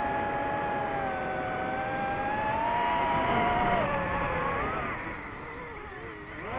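Multirotor drone's electric motors and propellers whining, several pitches at once that drift and bend as the throttle changes. About five seconds in, the whine sags lower and quieter, then climbs back up near the end.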